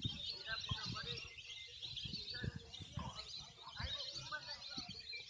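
Many birds chirping and twittering at once in a dense, continuous chorus, with short low thumps scattered through it.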